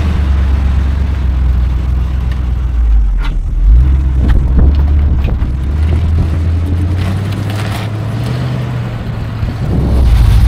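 Classic American V8 engines running with a steady low rumble as cars roll past. The rumble swells about four seconds in and grows louder again near the end.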